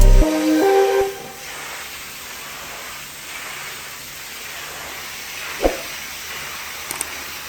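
Steady hiss of a pressure washer's spray jet, with the last of a music track fading out in the first second and a single short knock about five and a half seconds in.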